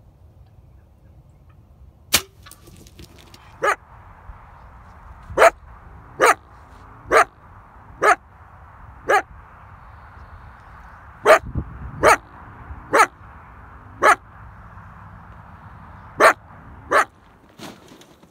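A coyote caught in a foothold trap barking at the trapper: about a dozen short, sharp barks roughly a second apart.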